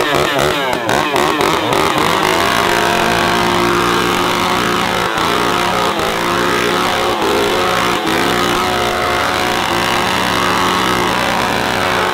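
Several small two-stroke engines revving together. For the first two seconds they rev quickly up and down, then they hold high revs, with brief dips in pitch now and then.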